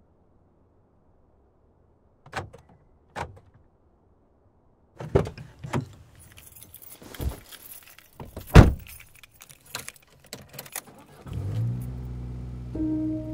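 A string of sharp clicks and knocks: two single ones, then a busier cluster with some hiss, the loudest knock about two-thirds of the way through. Low sustained music notes begin near the end.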